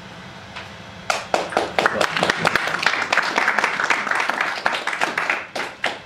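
Audience applauding at the end of a talk, with many overlapping claps starting about a second in and dying away near the end.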